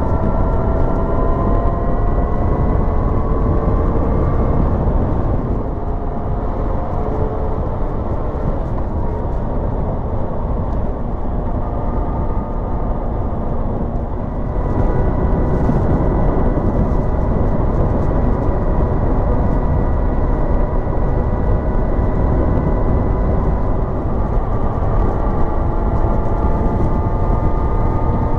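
Motorcycle engine running at road speed under heavy wind rush, heard from the bike itself. Its tone climbs slowly as it pulls in the first few seconds, eases off for a stretch in the middle, and picks up again about halfway through.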